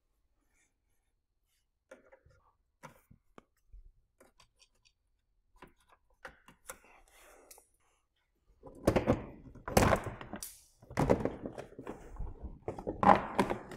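Faint scattered clicks, then from about eight seconds in a run of loud, irregular thunks and knocks of hands and tools working on the car.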